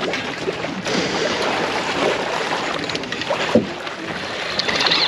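Steady rush of wind and water around an open fishing boat offshore, with one brief knock about three and a half seconds in.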